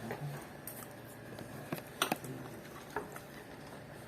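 Quiet eating sounds: soft chewing with a few light, sharp clicks of utensils or containers, the sharpest about two seconds in.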